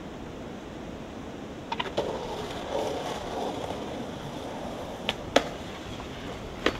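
Skateboard on concrete: after a steady hiss, sharp clacks of the board's tail and wheels hitting the ground about two seconds in, the wheels rolling, then more clacks about five seconds in and near the end.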